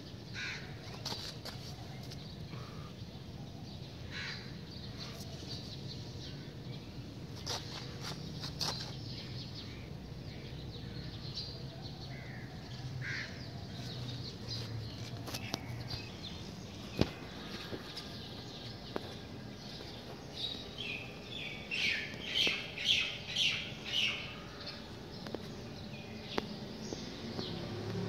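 Birds calling outdoors: scattered short calls over a steady low background, with a run of about six loud calls in quick succession about three quarters of the way through.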